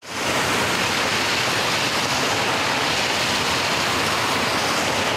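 Cars driving through deep standing water on a flooded street, a Toyota Hilux pickup in front, their tyres throwing up a steady rushing spray.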